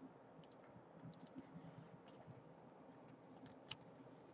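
Faint light scratching and small clicks of handling: a trading card being slid into a clear plastic card sleeve.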